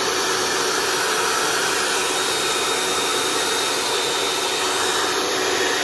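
Handheld electric hair dryer running steadily: an even rush of blown air with a faint steady whine.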